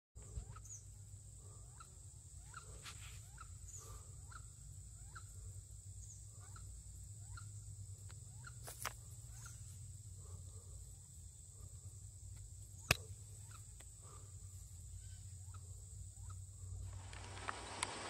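Faint outdoor wildlife sound: a steady high-pitched insect drone, with short rising bird chirps repeating about every half second and a few sharp clicks. Near the end it gives way to a louder hiss.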